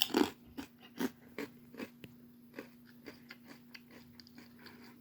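A person chewing crunchy baked protein crisps made from rice and pea protein: irregular crisp crunches, louder and closer together in the first couple of seconds, then thinning and fading as the mouthful breaks down.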